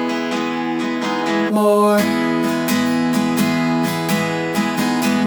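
Instrumental music: an acoustic guitar strumming chords in a steady rhythm, the chord changing about two seconds in.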